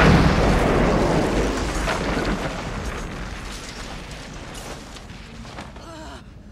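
Film sound effect of an orbital laser blast striking the ground: a sudden loud explosion that dies away slowly over about four seconds into a low rumble.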